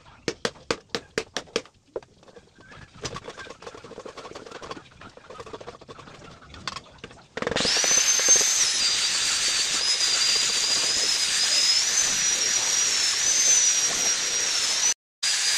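Short dry strokes of a paintbrush against a rough stone-textured wall, a quick run of about eight at first, then scattered. About halfway through, a loud steady hiss with a high wavering whistle starts suddenly and drowns them out.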